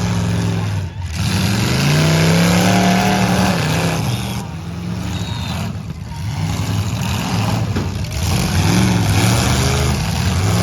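Demolition derby car engines running and revving over a steady din. One engine revs up about a second in and falls back a couple of seconds later.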